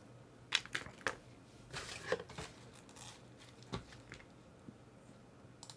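Small plastic miniature parts being handled: a few faint, light clicks and a brief rustle about two seconds in.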